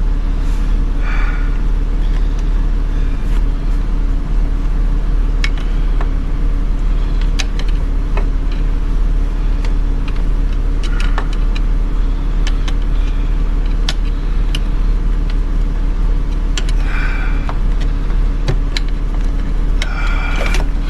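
A steady low drone, with scattered sharp clicks and taps from hand tools and plastic trim as a car's center console is being taken apart.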